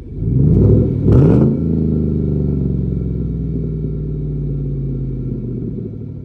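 GMC Sierra pickup's exhaust through a single 4-inch chrome tip: two quick throttle blips about a second apart, the second the louder. The engine then drops back to a steady idle.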